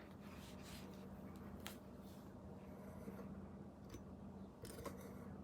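Faint handling of a picture book as it is turned to the next page: a few light clicks and rustles over a low steady hum.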